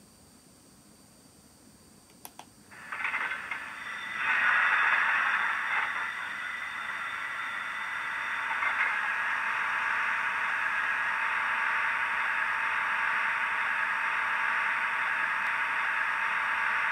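Sound decoder in an N gauge Class 251 Blue Pullman model playing diesel engine sound through its tiny speaker. After two faint clicks, the engine sound starts nearly three seconds in, swells about a second later, then settles into a steady thin idle with no bass.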